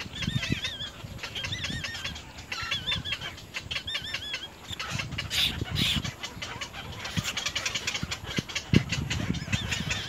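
Little egret nest with chicks: rustling and thumping of the twig nest and wing flaps, with rapid clicking calls building through the second half. A bird's short warbling phrases repeat about once a second in the first half.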